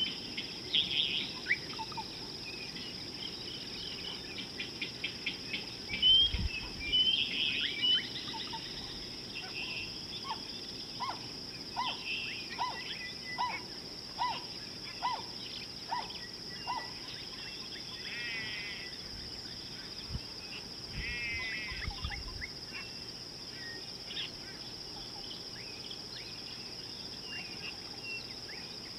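Steady high-pitched insect drone, with birds calling over it in scattered chirps and, midway, a run of about eight evenly spaced single notes. A couple of low thumps, the loudest sounds here, come about six seconds in and again past twenty seconds.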